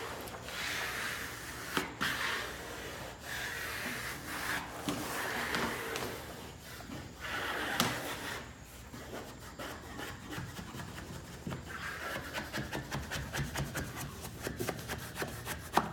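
A squeegee swept firmly across vinyl wallpaper on a wall, smoothing it down in a series of long rubbing strokes, which turn into quicker, shorter strokes over the last few seconds.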